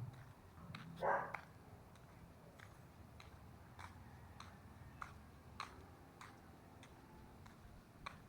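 Footsteps of a person walking: evenly spaced sharp, clicky steps, a little under two a second. A short, louder noise comes about a second in.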